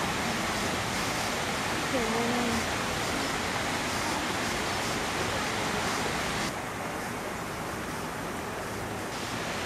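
Steady rushing of running water, with faint voices in the distance about two seconds in; the hiss loses some of its top around six and a half seconds in.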